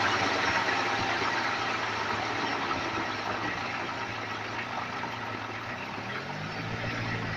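A wheel spun up to speed to check its bearing for humming. It runs with a steady low hum that slowly fades, and the low hum rises in pitch near the end.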